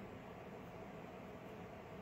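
Faint steady room noise: an even hiss with a faint steady hum and no distinct events.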